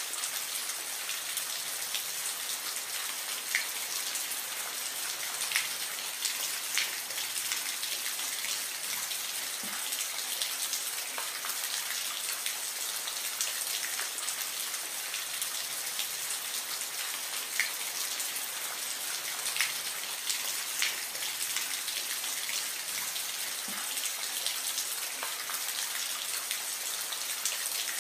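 Gentle rain falling steadily: an even hiss with scattered louder single drops landing every second or two.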